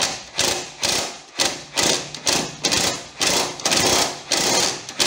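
Cordless impact wrench worked in short trigger pulses, about two bursts a second, driving the upper mounting bolt of a Fiat Panda's rear shock absorber. The pulsing keeps the bolt from being overtightened in a thread that the mechanic believes is aluminium and easy to strip.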